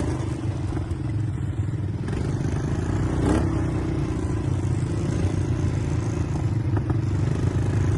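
ATV engine running steadily under way, with a brief louder noise about three seconds in.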